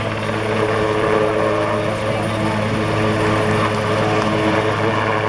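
Eurocopter AS332 Super Puma military helicopter hovering close by: its rotors and twin turbine engines make a loud, steady drone with a strong low hum and several held tones above it.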